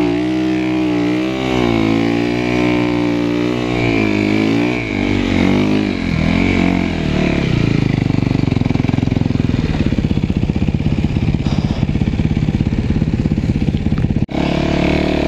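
Snow bike engine running under throttle in deep snow. Its pitch rises and falls repeatedly for the first few seconds, then it settles to a lower, steadier run with a fast, even putter of firing pulses.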